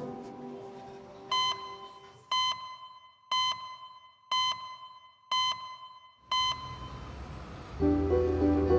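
Six short electronic beeps, one each second, all on the same high note: a clock-tick sound effect counting off the seconds of an on-screen time stamp. Music fades out before the beeps, and music with a low bass comes in near the end.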